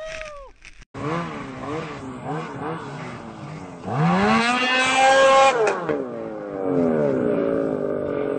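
Snowmobile engine blipping in short quick revs, then revving hard about three seconds in, holding high and dropping back, then revving up again as the sled wheelies up onto the end of its track.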